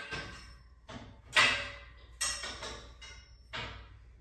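Metal bars of a bed frame clanking together as a steel crossbar is set onto the frame rails: several sharp knocks, each ringing briefly, the loudest a little over a second in.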